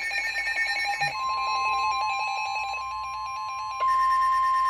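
Several weather alert radios sounding at once: rapid electronic beeping, joined about a second in by a steady tone near 1 kHz, the NOAA Weather Radio warning alarm tone. About four seconds in the beeping stops and the steady tones get louder.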